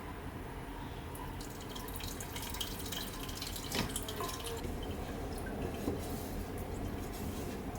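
Seafood sauce dripping and trickling through a sieve into the pot below, with a couple of light clinks about four and six seconds in.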